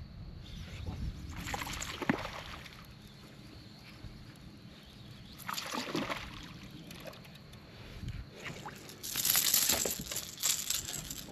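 A hooked bass splashing at the water's surface while being reeled in: three bursts of splashing, the loudest near the end as the fish is lifted from the water.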